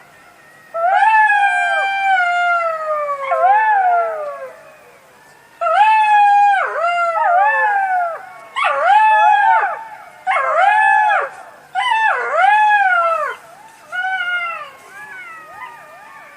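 Jackal howling and yipping: a run of wailing, quavering calls that rise and fall in pitch, in about eight bursts separated by short pauses.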